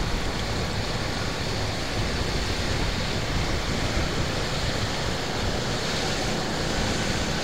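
Steady rush of wind on the microphone from a moving vehicle, with road and traffic noise underneath.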